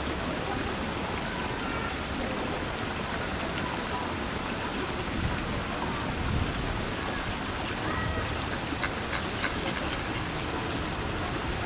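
Steady, even outdoor background hiss, like distant running water or wind, with a few faint short high clicks and chirps in the last few seconds.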